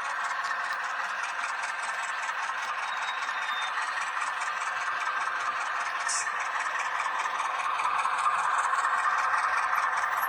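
H0-scale model Alco 313 diesel locomotive running, a steady whir with a fast, regular ticking, growing a little louder near the end.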